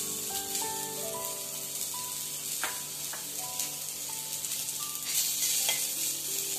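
Onion pieces sizzling as they dry-roast in a hot non-stick kadhai. A wooden spatula stirs and scrapes them, louder from about five seconds in, with a few light knocks on the pan.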